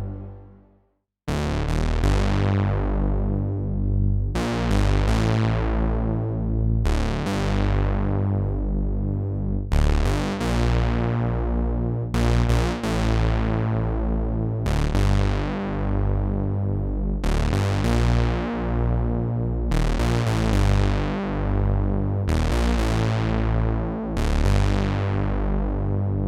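Oberheim SEM synthesizer sound (GForce Software's emulation) playing a patch: after the previous sound fades and a short gap, a low bass line sounds under bright notes whose brightness dies away after each attack as the filter closes, re-struck about every two and a half seconds. It fades out near the end.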